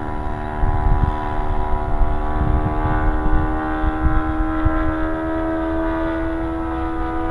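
Engine of a radio-controlled model Cessna droning steadily in flight overhead, its pitch creeping slightly higher over the last few seconds, with wind buffeting the microphone.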